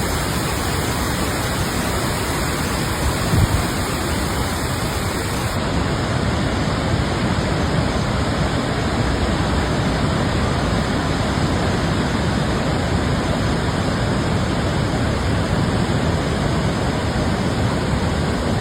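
Kravica Waterfall, swollen by flooding, pouring in a steady, heavy rush of water. There is a brief low thump about three and a half seconds in.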